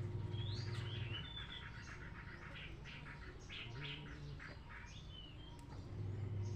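Small birds chirping, with quick repeated chirps and short whistled notes that rise and fall, over a low steady hum.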